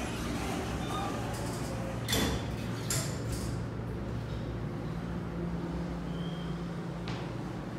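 Schindler hydraulic elevator's sliding doors closing, with a knock about two seconds in and a second one a second later as they shut, over a steady low hum. A click sounds near the end.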